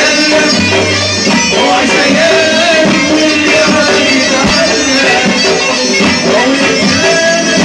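Tunisian folk music, an instrumental passage led by a reedy, bagpipe-like melody line that holds and ornaments its notes.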